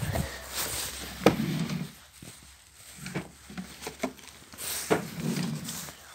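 Phone handling noise and soft knocks while the phone is carried through a small room, with a sharp click about a second in.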